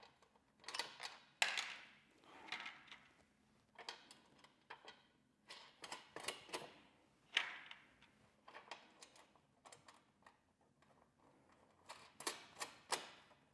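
Irregular clicks, taps and light scrapes of screws, nuts and floorboard plates being handled and fitted by hand.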